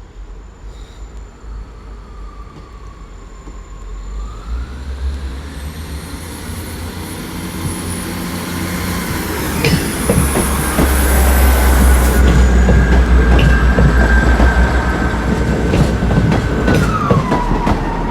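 South Western Railway Class 159 diesel multiple unit passing close by: diesel engine rumble and wheels clicking over rail joints, growing louder over the first ten seconds or so, with a high steady whine that drops in pitch near the end.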